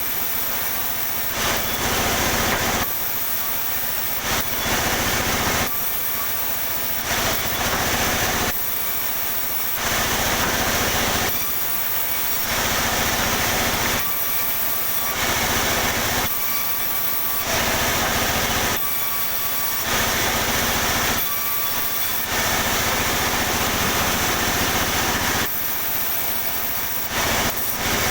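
Sawmill saw running and cutting pine, with a steady machine hum. Louder, harsher stretches of a second or two, each a cut through the wood, alternate with quieter running about every three seconds.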